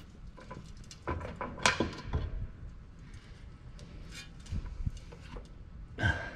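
Scattered metal clanks and knocks from a rusty truck driveshaft being worked free of the underbody and lowered by hand. The loudest clank comes a little under two seconds in, with another cluster of knocks near the end.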